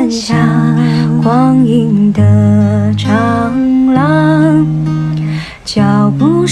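A woman singing a slow Mandarin ballad over a strummed acoustic guitar with sustained low notes. There is a brief breath pause between lines near the end.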